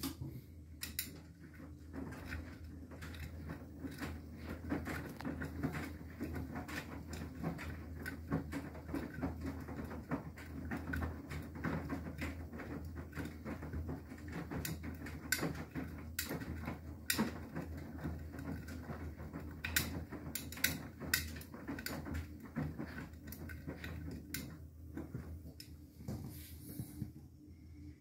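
Beko WTK104121W front-loading washing machine tumbling a wet, absorbent load in the wash phase. The drum motor hums steadily under irregular patter, sloshing and clicks from the wet clothes and water dropping inside the drum. It quietens near the end.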